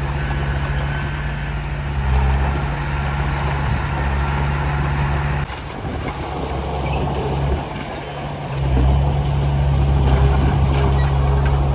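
Heavy diesel engine of earthmoving machinery running steadily. Its sound drops away abruptly about halfway through and comes back louder about three seconds later, with scattered light clicks.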